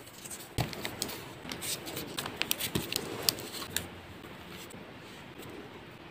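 Hand-work on soft clay: a run of small clicks, taps and scrapes from sculpting tools and fingers on the clay and its cardboard base, busy for the first few seconds and then quieter.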